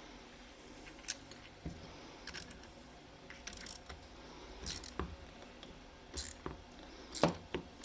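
Small metal parts of a bearing puller and its washer and nut spacers clicking and clinking as they are handled, in short separate knocks every second or so.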